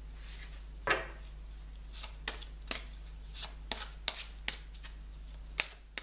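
Deck of reading cards being shuffled and handled: about ten sharp card snaps and flicks, the loudest about a second in, the rest coming quickly from about two seconds on.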